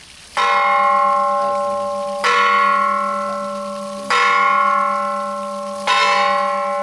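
A single church bell tolling: four strokes roughly two seconds apart, each ringing on and fading before the next.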